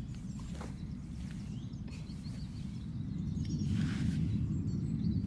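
Outdoor ambience: a steady low rumble, typical of wind on the microphone, that grows louder partway through, with brief soft rustles about half a second in and again around four seconds in.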